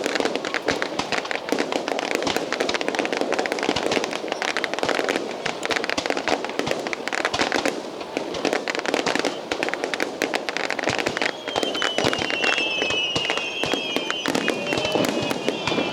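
Fireworks display: a continuous rapid crackling of many small bursts and bangs. About two-thirds of the way through, a high wavering whistle joins in and carries on over the crackle.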